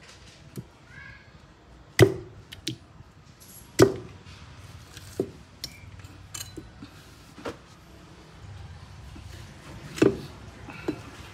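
Cleaver chopping raw meat on a wooden chopping board: irregular heavy knocks, the loudest about two and four seconds in and again near ten seconds, with lighter knife taps between.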